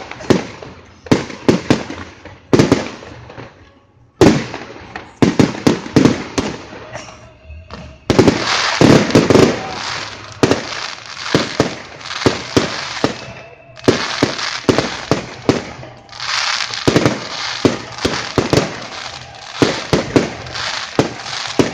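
Fireworks display: a run of loud sharp bangs from aerial shells, with long stretches of dense crackling about eight seconds in and again around sixteen seconds.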